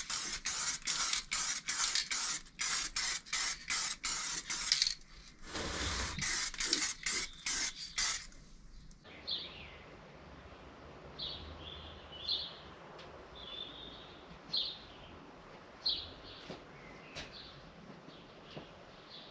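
Spray paint hissing out in quick short bursts, about two or three a second, while the parts of a vice are painted; the spraying stops about eight seconds in, and faint bird chirps follow.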